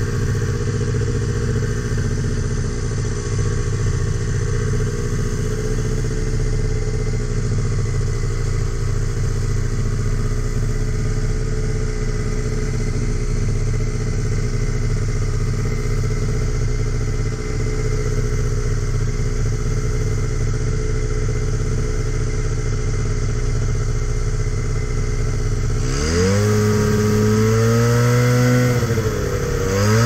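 Ultralight trike's 40-horsepower Japanese engine running steadily at low power, then about 26 seconds in the throttle opens and the pitch rises, dips briefly near the end, and climbs again.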